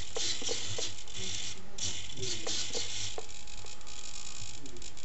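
Swashplate servos of a flybarless RC helicopter buzzing in short bursts as the cyclic stick tilts the swashplate toward its limits, with small clicks. They stop about three seconds in.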